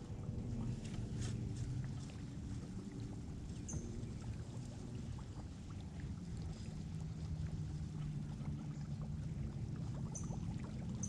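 Steady low rumble with faint water sounds around a kayak hull, broken by a few tiny ticks and two brief high chirps.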